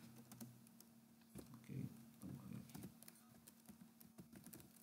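Faint computer keyboard typing: irregular key clicks, over a faint steady hum.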